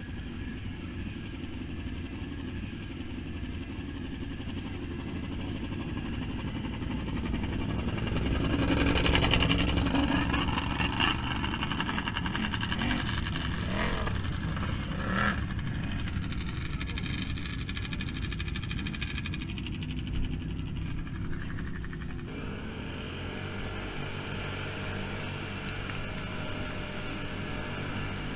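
Quad (ATV) engine running while riding, swelling to its loudest about a third of the way in, with a few short sharp knocks in the middle.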